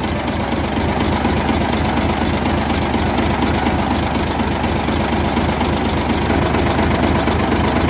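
Dump truck's diesel engine running steadily at idle, close up, to build air pressure in the brake system after the compressor's safety valve has been opened several turns.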